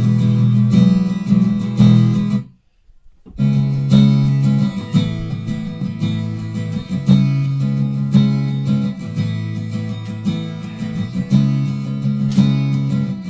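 Recorded acoustic guitar strumming chords, played back dry with its EQ and compressor plugins switched off. About two and a half seconds in, the playback cuts out for about a second, then resumes.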